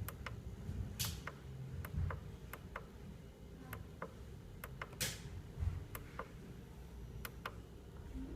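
Control buttons on a battery LED uplight being pressed to step through its settings: a series of sharp clicks at uneven intervals, with two louder ones about a second in and about five seconds in.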